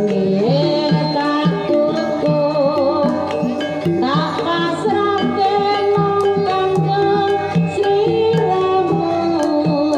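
Banyumasan gamelan playing a tayub piece, with a sinden (female singer) singing over gongs, kettle gongs, a mallet-struck keyed instrument and drum. Her voice slides up into long held, wavering notes near the start and again about four seconds in, over a steady beat.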